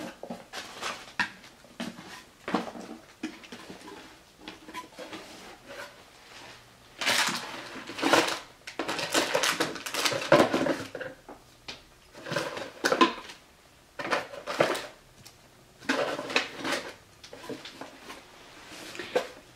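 A cardboard mailer box and small packaged products being handled and set down: rustling and scraping, with a string of light knocks and clatters that come and go.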